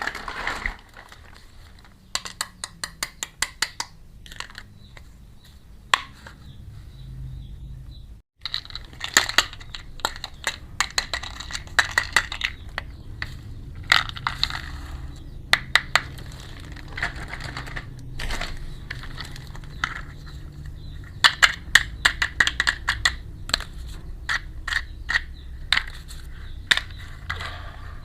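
Small plastic toy pieces and packaging being handled: bursts of sharp crackling and clicking, in irregular clusters, with a brief drop to silence about eight seconds in.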